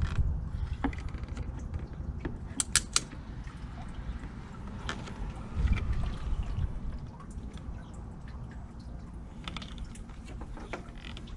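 Hands working the upper radiator hose off a truck engine: a few sharp clicks and knocks of hose clamp and fittings, with a quick run of three clicks about three seconds in, over low handling noise.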